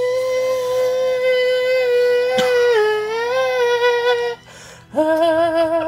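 A person singing a long, loud, held high note with small pitch steps and a dip about three seconds in, with a sharp click partway through. After a short break comes a second, lower note with a wavering pitch. The singer is straining their throat.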